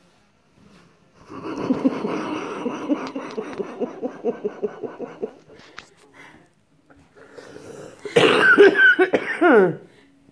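A woman laughing hard: a long stretch of wheezy, breathy laughter in rapid pulses, then after a pause a louder burst of laughter with a high squeal that falls in pitch near the end.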